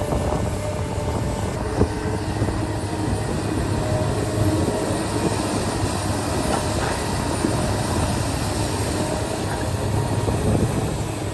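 Heavy diesel construction machinery running steadily: a low engine drone with a sharp knock about two seconds in.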